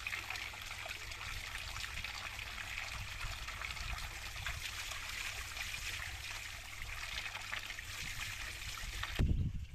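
Water running from a pipe spout into a stone basin and splashing over hands rinsing tomatoes in the stream: a steady pouring hiss. Near the end the water sound stops abruptly and a short low thump follows.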